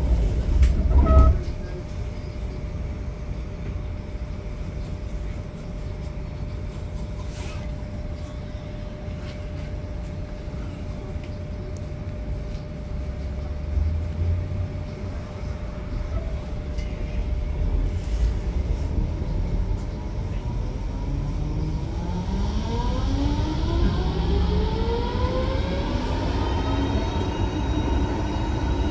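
Frankfurt R-Wagen low-floor tram heard from inside: a steady low rumble with a held tone, then from about two-thirds of the way through the traction drive whines, rising in pitch as the tram accelerates and settling into a set of steady high tones near the end.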